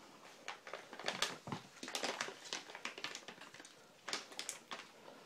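Faint, irregular rustling and scuffing from a cat rolling around in catnip, in a string of short, uneven strokes.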